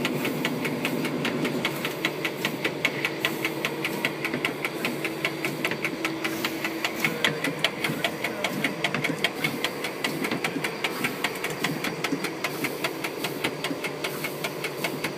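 Locomotive cab noise: a rapid, even clicking, several times a second, over a steady mechanical hum.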